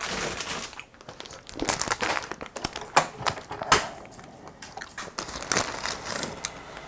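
Plastic instant-ramen packet crinkling and rustling as it is handled and the dried noodle block is pulled out, with a few sharp crackles of the wrapper.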